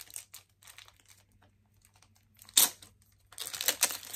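Plastic card packaging crinkling as a trading card is taken out of it: scattered faint crackles, one sharp crackle about two and a half seconds in, then dense crinkling from a little after three seconds.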